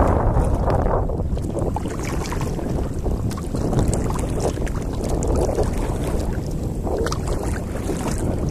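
Wind rumbling across the microphone while afloat in a kayak, with small light splashes of water scattered through it.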